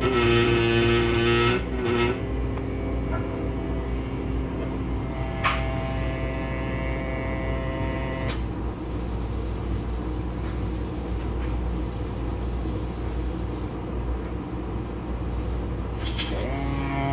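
Steady low rumble of workshop machinery, with sustained guitar-like music notes over it in the first two seconds, again from about five to eight seconds in, and near the end.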